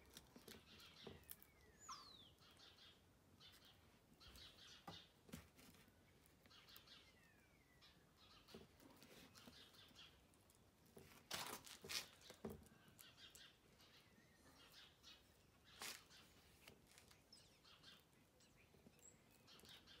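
Quiet outdoor handling sounds: scattered light clicks and knocks as a small scooter tyre and inner tube are worked by hand on a brick, the loudest a cluster of knocks about halfway through. Faint birds call in the background, a couple of their calls falling in pitch.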